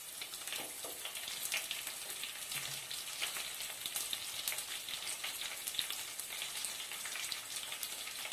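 Hot oil sizzling in an aluminium pan with many fine crackles as bay leaves, crushed garlic and onion pieces fry.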